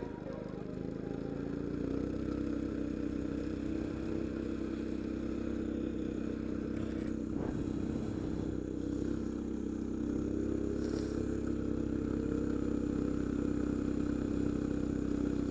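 Coleman CT200U minibike's single-cylinder four-stroke engine running under throttle while riding. Its note climbs about two seconds in, then holds steady, rising slightly again near the end.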